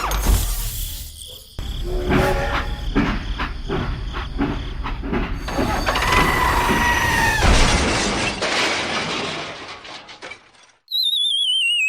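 A spliced run of mechanical clatter and knocks from a toy-scale construction model, with a steady two-tone note for about a second and a half near the middle. Near the end a warbling whistle falls steadily in pitch, cut in abruptly.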